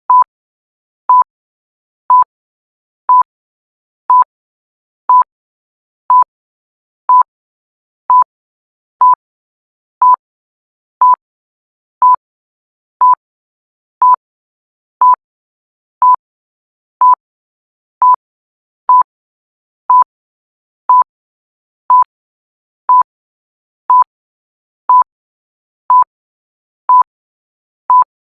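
Short electronic beeps of one steady pitch, about one a second in an even rhythm, with silence between them.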